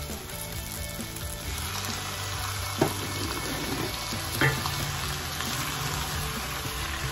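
Squid pieces sizzling in hot oil with sautéed garlic and onion, the sizzle growing thicker as the squid goes into the pot. A wooden spoon stirs through them, with two sharp knocks against the pot.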